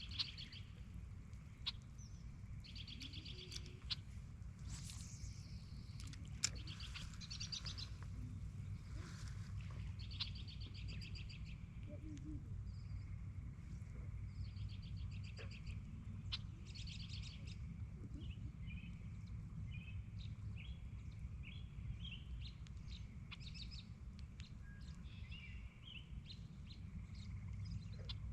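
Songbirds calling around a lake at dusk: several quick trills and many short chirps, high-pitched. A low steady rumble runs beneath them, and a few sharp clicks come in the first seven seconds.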